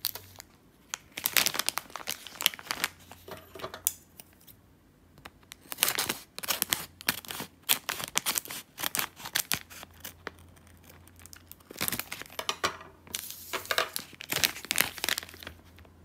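Plastic candy wrappers and a plastic snack bag crinkling as they are handled, with the bag being torn open, in three spells of crackling.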